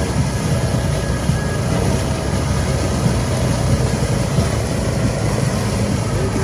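Off-road vehicle engine running steadily, with a dense rumble and a noisy hiss over it.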